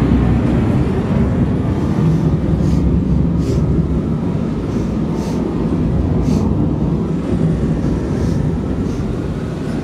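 A loud, steady, deep rumble played through an exhibit's sound system of many speakers, strong enough to make the floor vibrate.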